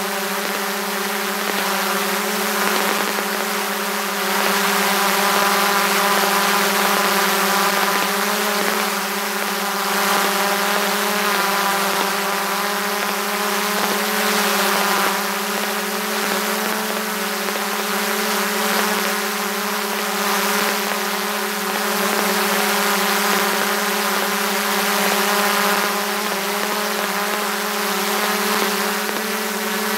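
DJI Mavic 2 Pro quadcopter's motors and propellers running steadily in flight, heard right beside them from a camera mounted on the drone: a loud, steady whine of several stacked tones that waver slightly in pitch.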